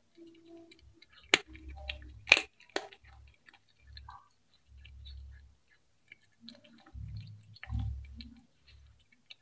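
A cat chewing fried fish close to the microphone: irregular wet chewing, with three sharp, loud crunches between about one and three seconds in.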